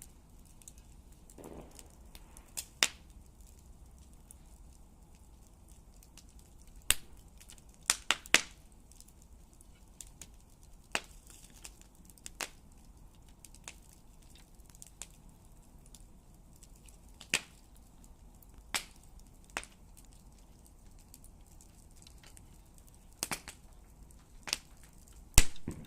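Campfire crackling: burning wood gives a dozen or so sharp pops at irregular intervals, several close together about eight seconds in and again near the end, over a faint low rumble.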